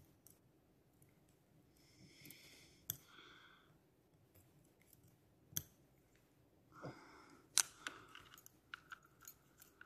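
Sparse small metallic clicks and ticks as a small tool and the parts of a Stihl MS 150 TC chainsaw's new piston and used crankcase are handled, with soft rustles between them.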